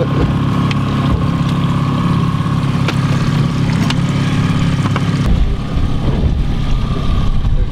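Boat's outboard motor running steadily at trolling speed, a low even hum; about five seconds in it turns into a rougher low rumble.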